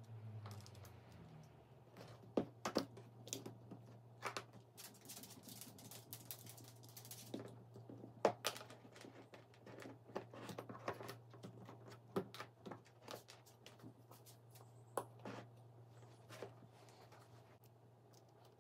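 Irregular light clicks and taps of small hard parts and tools being handled, over a steady low hum.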